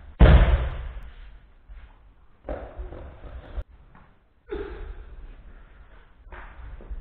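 A body thrown onto a judo mat: one loud slam of the landing and breakfall about a quarter second in, echoing in the hall. Quieter thumps and movement on the mats follow a few times.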